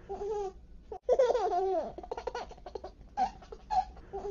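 Laughter in short bursts, with a longer gliding, falling vocal sound about a second in.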